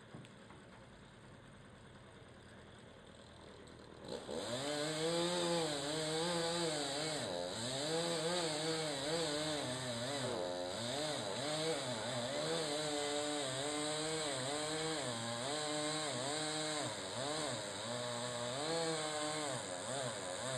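A chainsaw starts up about four seconds in and runs at high speed, its engine pitch rising and falling over and over as it cuts into a tree trunk.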